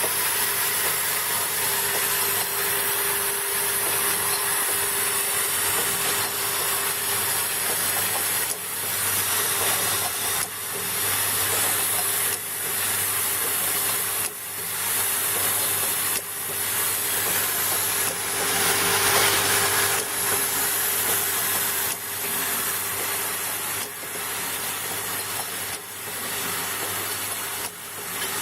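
Four-nozzle liquid filling machine and its conveyor running: a steady mechanical hum and hiss with a constant tone, breaking into short dips and swells about every two seconds from about a third of the way in.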